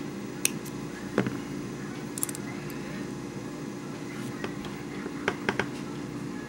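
Small scissors snipping a piece of double-sided adhesive tape: a few sharp short clicks, three of them close together near the end, over a steady background hum.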